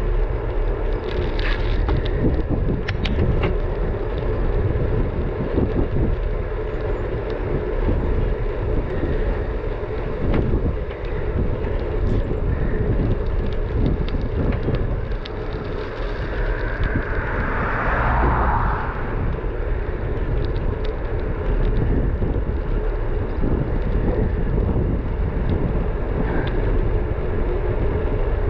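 Wind buffeting the microphone of a bike-mounted action camera while riding on a paved road, with a steady low rumble and hum of road noise. About two-thirds of the way through, a louder hiss swells and fades.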